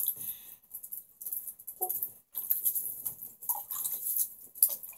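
Wet, crackly rubbing and splashing in uneven spurts as hands work water through a Chihuahua's wet fur in a bathtub.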